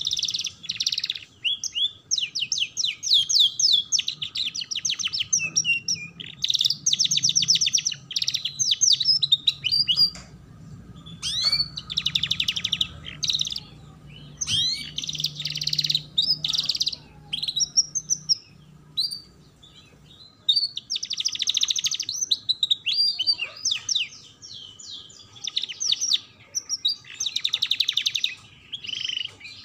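Domestic canary singing: fast trills and chirps in phrases of one to three seconds, broken by short pauses, with a quieter stretch of only scattered chirps a little past halfway.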